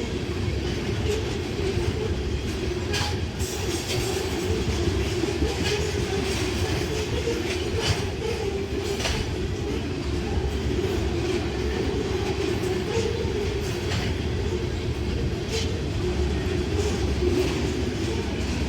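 CSX freight train of tank cars rolling past: a steady rumble of steel wheels on the rails, with sharp clacks from the wheels scattered every second or two.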